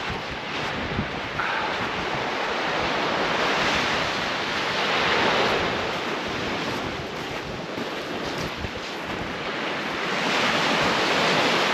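Sea surf washing onto the shore, swelling twice, with wind buffeting the microphone.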